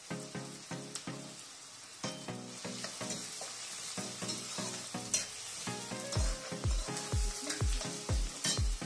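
Chopped onions and whole spices sizzling in hot oil in a steel kadhai, stirred and scraped with a steel spoon as they are browned. Background music runs underneath with a regular pattern of notes, a deep bass beat coming in about halfway.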